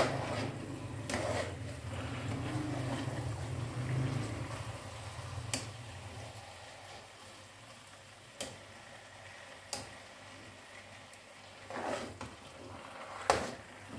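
Metal spoon stirring and scraping thick, sticky semolina halwa in a wok, with a handful of sharp knocks of the spoon against the pan. The stirring is heavier in the first half and quieter later. The halwa is still at the raw, sticky stage, not yet grainy.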